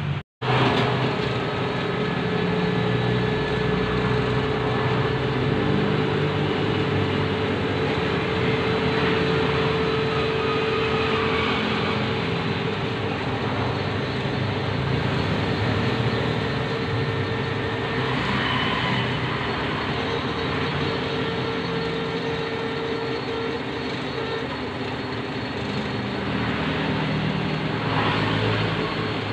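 Metal lathe running steadily while turning a white PTFE (Teflon) rod: a constant machine hum with a held mid-pitched tone. The sound cuts out for an instant just after the start.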